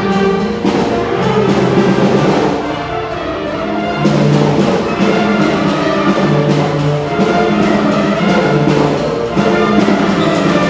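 Orchestral music with brass, moving in held notes about a second long.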